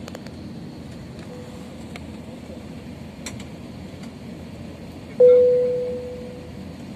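Steady hum inside an Airbus A320 cabin at the gate, with a single loud electronic cabin chime about five seconds in that rings out and fades over a second or so.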